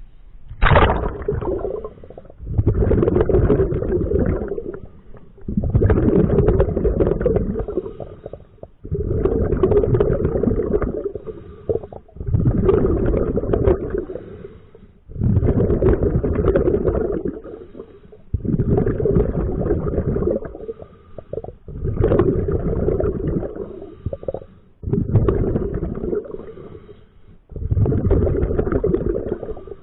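Scuba diver breathing through a regulator underwater: bursts of exhaled air bubbling out, each about two seconds long, coming about every three seconds.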